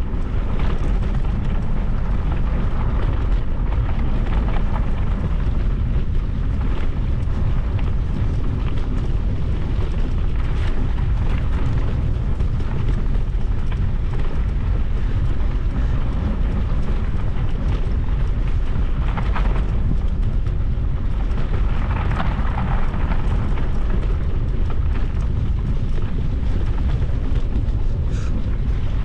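Steady wind rumble buffeting the microphone, a loud, even low roar without breaks.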